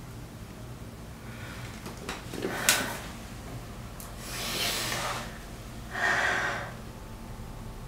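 A woman's heavy breathing: a short click about three seconds in, then two long breaths, the second one louder, over a faint steady low hum.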